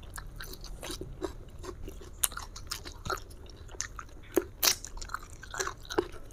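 A person chewing and biting food: wet mouth clicks and crisp crunches, with a few sharper crunches about four and a half seconds in and again near the end.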